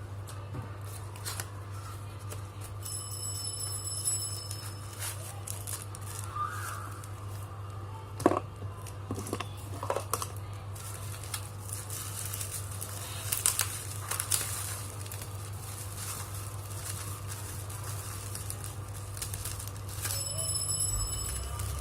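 Packaging being handled and opened: rustling, crinkling and scattered small clicks and taps over a steady low hum.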